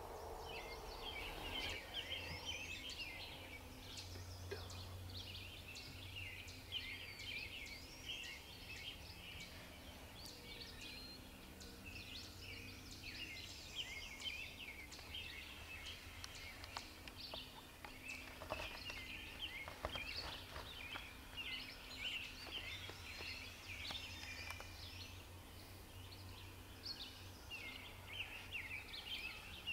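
Songbirds chirping and singing continuously, several at once with overlapping quick chirps and trills, over a low steady hum.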